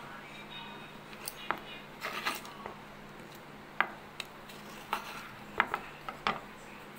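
An aluminium idli plate and steel kitchenware clinking and scraping as steamed idlis are lifted out of the moulds into a plastic box: a scatter of short, sharp metal clicks.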